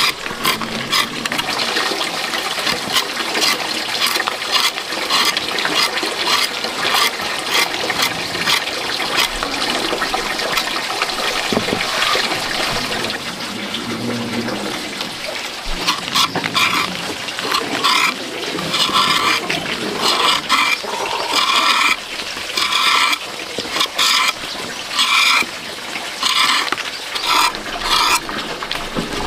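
Water splashing and sloshing, with many small knocks; about halfway through it turns into a run of short, regular strokes.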